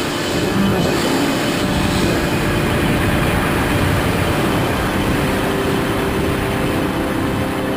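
Steady rushing roar of air during a high-altitude freefall, with a low sustained droning tone beneath it.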